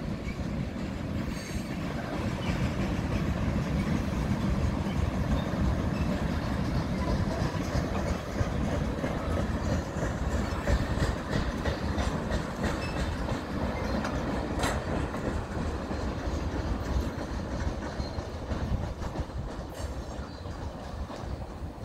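Freight train of tank cars rolling past, a steady low rolling noise of steel wheels on rail, with one sharp click about two-thirds of the way through. It eases off near the end as the last cars go by.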